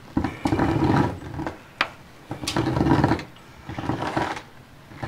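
Electrical wire being pulled by hand down through the aluminum fan beam of an insulated roof panel, in three long dragging pulls, with a sharp click shortly before the second pull.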